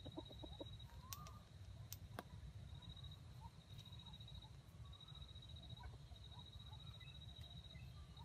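Faint woodland ambience: a high steady trill that comes and goes, scattered faint bird chirps, and a low wind rumble, with a short run of four quick notes right at the start.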